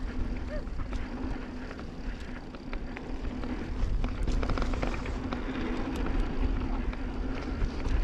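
Santa Cruz Bronson mountain bike rolling down a dry dirt trail: tyres running over dirt, scattered rattles and clicks from the bike, and wind rumbling on the camera microphone, with a steady hum underneath. It gets louder about halfway through as the speed picks up.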